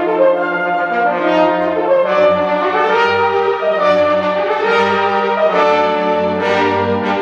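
Four solo French horns playing sustained, moving chords together over a full symphony orchestra.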